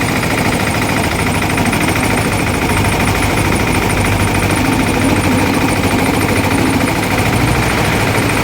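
Sugarcane juice crushing machine running steadily, a loud, even mechanical drone.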